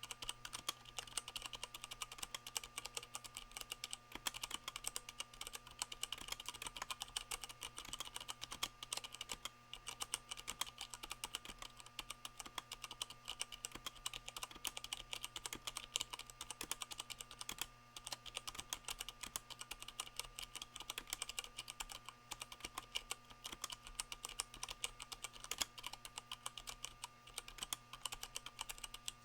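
Continuous fast typing on a Leopold FC660M mechanical keyboard with Cherry MX Brown switches, the rubber O-rings under the keycaps damping the bottom-out clacks into softer thocks. The keyboard sits on a microfiber towel, which keeps desk noise out of the sound.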